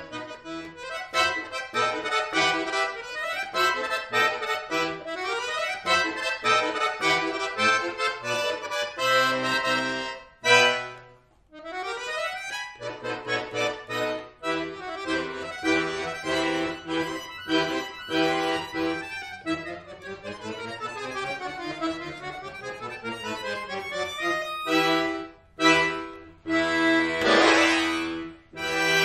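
Chromatic button accordion (bayan) playing a fast solo piece in rapid note runs, with a brief break partway through and rising and falling scales crossing each other later on. It ends on a loud held chord near the end.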